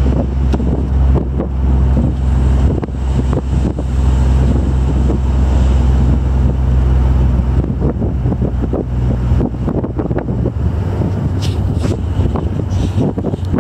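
Wind buffeting the microphone in an open-top 1962 Chevy II convertible on the move, over the steady low drone of the car's engine and road noise. The low drone shifts in pitch about eight seconds in.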